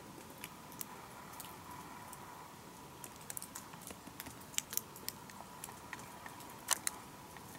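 Faint, irregular small clicks and ticks, a couple of them sharper near the end, over a quiet background with a faint steady high hum.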